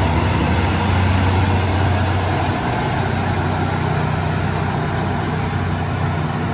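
Heavy diesel road-paving machinery running steadily, with a low engine hum over a broad rumble; the deepest part of the hum eases slightly about two and a half seconds in.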